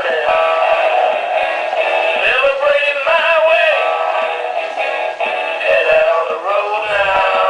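A pitched, voice-like sound with several tones gliding up and down and breaking every fraction of a second, like synthetic singing, thin and with no bass.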